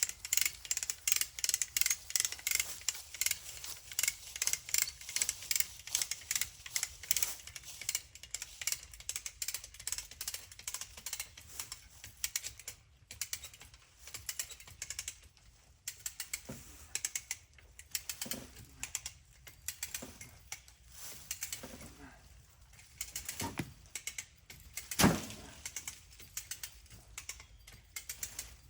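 Ratchet strap being cranked tight, its pawl clicking rapidly. The clicks thin out and become irregular in the second half as the strap takes up the load. One louder knock comes near the end.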